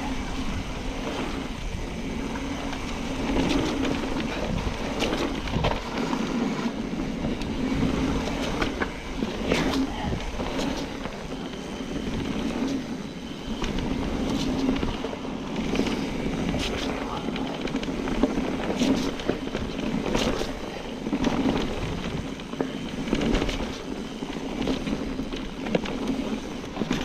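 Trek Fuel EX 9.8 29 full-suspension mountain bike ridden down a wet trail: a steady rush of tyre and wind noise, with frequent clicks and knocks from the bike rattling over rough ground.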